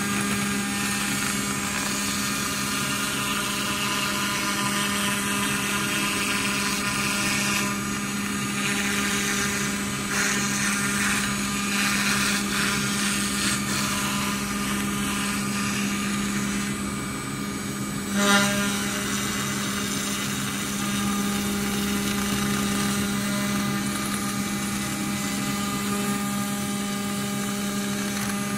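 Water-cooled CNC router spindle milling aluminium sheet with an end mill: a steady, high-pitched machining whine made of several steady tones, whose upper sound shifts as the cut moves along the letter outline. About two-thirds of the way through there is one sharp, loud crack.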